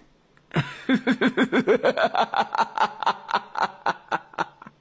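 A person laughing hard in a fast run of short bursts, about six a second. It starts about half a second in and runs on for roughly four seconds.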